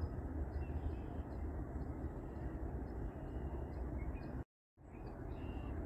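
Outdoor ambience: a steady low rumble with short, faint high bird chirps. The sound cuts out completely for a moment about four and a half seconds in.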